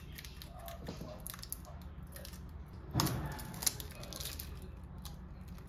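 Hands handling a laptop charging cable: soft rustles and small clicks, with a louder rustle about three seconds in and a sharp click just after.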